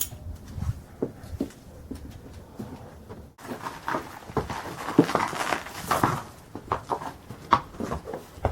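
Handling noise of a pony in a stable: knocks, shuffles and rustling as a head collar is put on and the pony is tied up. The sound jumps about a third of the way in, becoming louder rustling with quick clicks and knocks.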